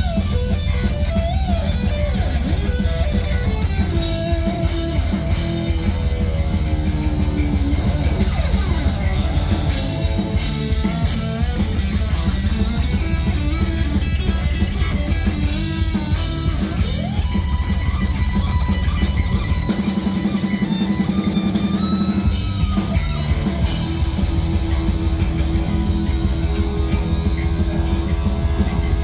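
A heavy metal band playing live and loud: distorted electric guitar with bending lead lines over bass and a drum kit. The bass and kick drop out for about two seconds around two-thirds of the way through, then come back.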